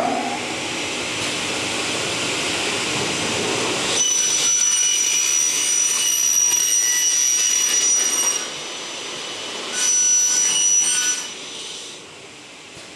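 Power saw cutting aluminium profile: a steady whirring hiss, then a high ringing whine as the blade cuts, for about four seconds. A second, shorter cut comes near the end.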